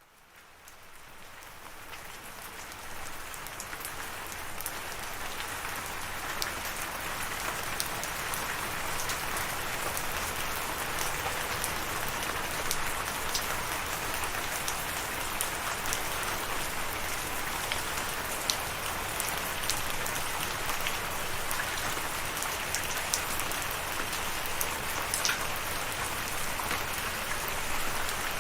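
Steady rain falling, with scattered sharper drop ticks. It fades in from silence over the first few seconds, then holds even.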